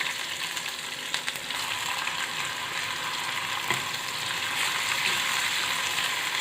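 Freshly added onion, green chilli and tomato frying in hot oil in a pan, a steady sizzle. A couple of light clicks come about one and four seconds in.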